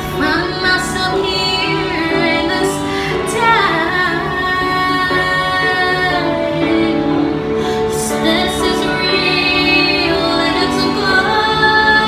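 A woman singing over instrumental accompaniment, with long held notes and sliding runs; a long held note comes near the end.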